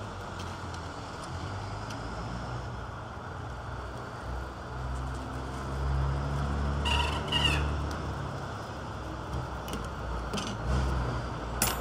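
Low rumble of another vehicle's engine running close by, swelling for a few seconds around the middle. A few light metallic clicks sound over it, the sharpest near the end.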